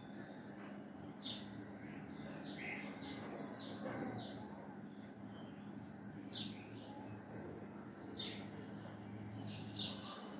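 Small birds chirping: short, high chirps, some sliding down in pitch, coming singly and in quick runs of several notes.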